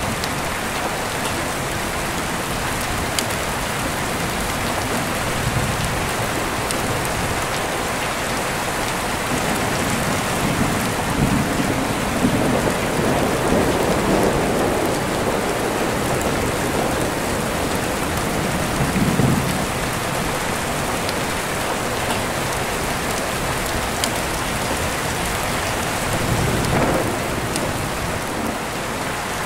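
Steady rain falling, with low rolling thunder rumbling under it: a long rumble building through the middle, then shorter swells later on.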